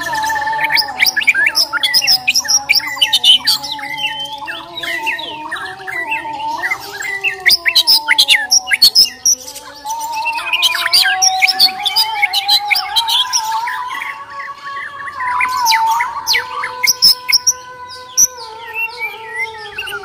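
White-rumped shama (Bornean murai batu) singing a loud, rapid, varied song of whistles, chattering trills and sharp clicks, with brief lulls. Beneath it runs a steady hum that drifts slowly in pitch.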